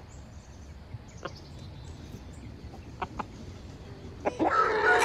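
A rooster calling: a few quiet seconds with faint ticks, then a loud, pitched call that starts near the end and carries on.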